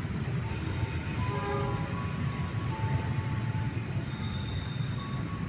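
Diesel-hauled passenger train running along the track: a steady low rumble, with thin high-pitched tones coming and going above it.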